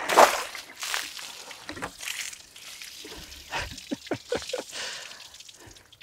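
Water splashed onto a freshly sawn silver maple slab to wet its surface. The loudest splash comes right at the start, more follow about one and two seconds in, then quieter scattered splatters.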